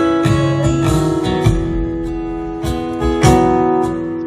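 Live acoustic guitar strumming ringing chords, with a drum kit adding a few sharp hits, about a second and a half in and again past three seconds.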